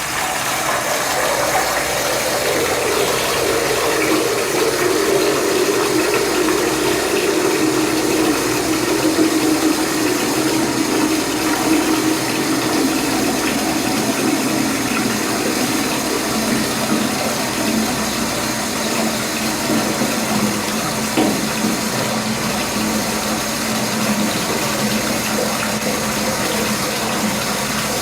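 Steady rush of falling water, used as a rain sound effect, with a hollow tone in it that sinks slowly in pitch over the first twenty seconds or so and then holds.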